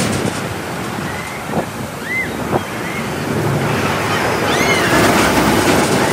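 Steel roller coaster train rumbling along its track as it passes, growing louder about five seconds in, with a few short high cries rising and falling over it.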